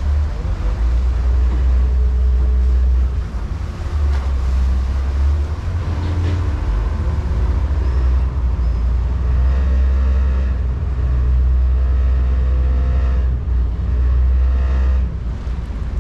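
Low, gusty rumble of wind on the microphone aboard a moving vaporetto, over the water bus's running engine and water noise, with faint passenger voices in the background.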